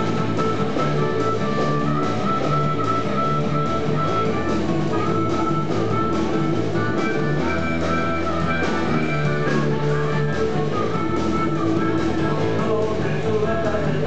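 A live blues-rock band playing: electric bass, electric guitar and drum kit, with a melodic lead line over a steady groove.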